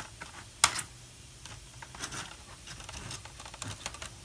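Plastic case of an old Dell Inspiron laptop being pried and flexed apart by hand: two loud sharp cracks a little over half a second in, then a run of smaller plastic clicks and snaps.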